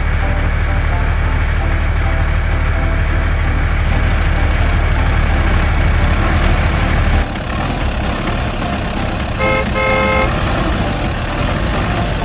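Vehicle engine sound effect, a steady low rumble that turns rougher about seven seconds in, dubbed over toy trucks being pushed along. Near ten seconds in, a vehicle horn gives a short toot and then a longer one.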